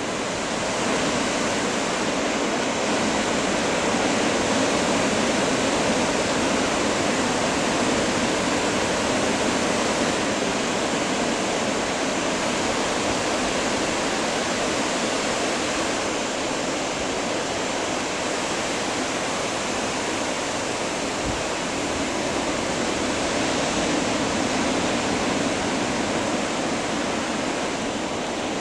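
Ocean surf: a steady rush of breaking waves and whitewater that swells slightly now and then.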